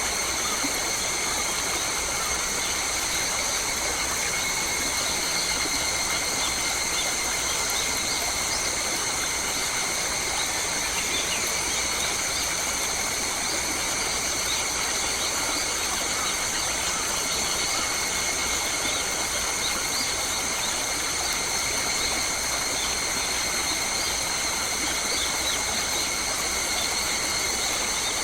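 Forest ambience: a steady, unchanging high-pitched drone at several pitches over an even hiss, with a few faint bird calls.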